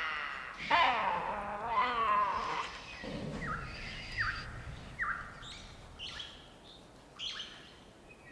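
Tasmanian devils screaming during mating: a harsh, wavering scream over the first few seconds, then a run of short, high calls roughly every half second to second, fading toward the end.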